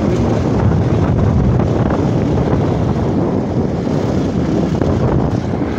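Motorcycle on the move: steady wind buffeting the microphone over the running engine as it rides along a gravel road.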